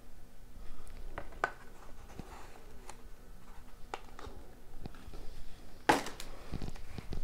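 Hands handling a cardboard trading-card box: scattered light taps, rubs and scrapes of fingers and cardboard as the box is worked open, with one louder knock about six seconds in.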